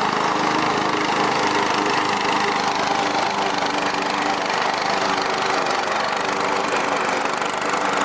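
Riding lawnmower engine running steadily with an even drone.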